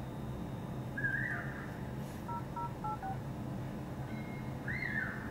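Doogee DG300 smartphone's dial-pad DTMF tones: about five short two-tone beeps in quick succession as the number 10086 is tapped in, a little past the middle. Two short chirps that rise and fall in pitch come about a second in and near the end.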